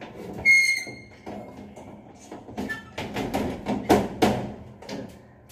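Louvered metal ceiling reflector panel being pushed back into its frame: about half a second in, a sharp metallic clank that rings briefly, then a run of knocks and rattles as the panel seats.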